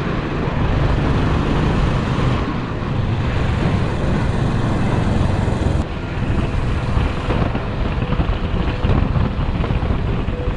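Motorcycle riding along a road: the engine running under steady wind noise on the camera's microphone. The sound changes abruptly about six seconds in.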